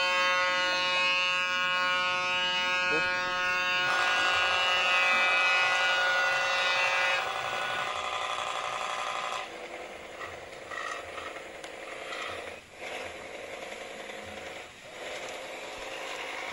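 Toy pop-pop boat's little steam engine running: a fast, steady buzzing rattle. The sound changes about four seconds in and again around seven seconds, and grows fainter from about nine and a half seconds.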